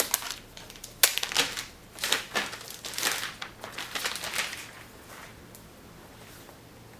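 Packaging crinkling and crumpling in irregular bursts as a boxed keyboard is unwrapped, dying away after about five seconds.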